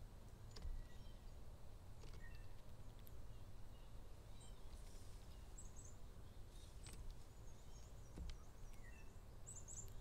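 Faint outdoor ambience at a bird feeder: scattered small songbird chirps, including a couple of quick high three-note twitters, over a steady low rumble, with a few light clicks.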